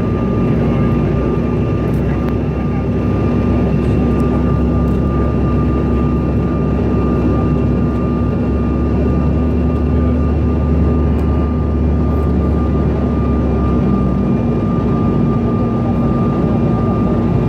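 Cabin noise of a CRJ 900 regional jet with its rear-mounted GE CF34 turbofans running: a steady low rumble with several steady whining tones held throughout.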